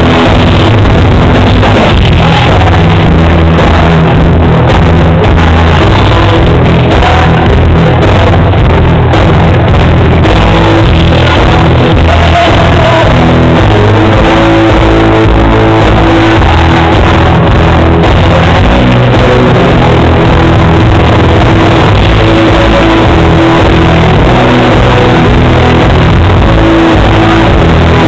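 Loud country-rock music from a band with guitars and a male singer.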